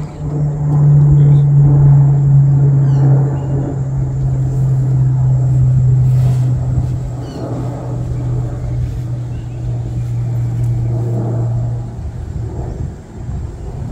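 A loud, steady low motor hum on one pitch, sinking slightly over the first few seconds and stopping about twelve seconds in, with a few faint bird chirps above it.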